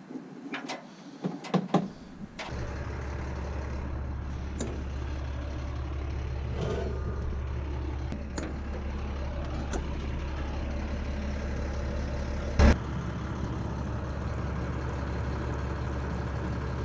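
A steady low engine-like rumble that starts abruptly a couple of seconds in, after a few light clicks, with one sharp knock about three-quarters of the way through.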